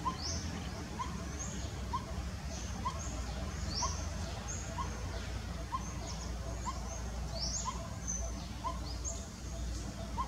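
Outdoor bird calls: short, high, falling notes at irregular intervals, with a short chirp repeated about once a second, over a low steady rumble.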